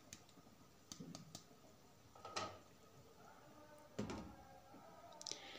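Faint knocks of a wooden spoon stirring chicken in a metal pan, then a glass pan lid set down on the pan with a knock about four seconds in.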